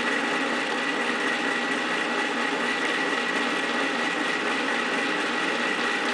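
Cuisinart frozen yogurt, ice cream and sorbet maker running, its electric motor churning a still-liquid ice cream mix in the freezer bowl: a steady motor hum with a constant high whine.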